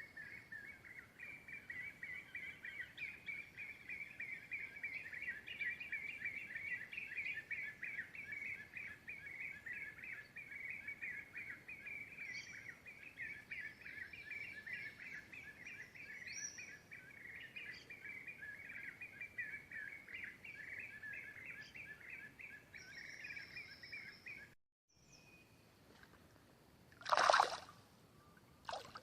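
Birds chirping and trilling in a fast, continuous chatter that breaks off abruptly about three quarters of the way in. A short, loud noise follows a couple of seconds before the end.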